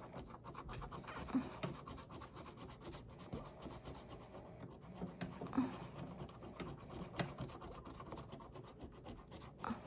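Faint, rapid scratching as the coating of a scratch-off panel on a paper savings-challenge tracker is scraped away in many quick strokes, a few of them louder than the rest.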